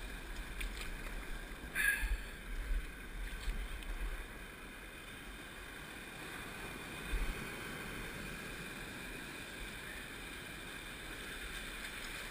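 Surf washing and foaming around rocks, with wind buffeting the microphone in low gusts, mostly during the first few seconds.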